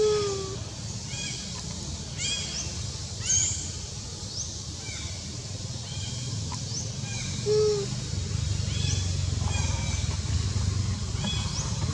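Bird calls outdoors, a short high chirp repeating about once a second. Two short low falling calls, one at the start and one about seven and a half seconds in, are the loudest sounds. Under them runs a low engine rumble that grows louder near the end.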